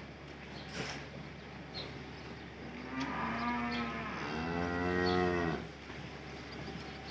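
A cow mooing once: a single long call of about three seconds that grows louder toward its end and then stops abruptly.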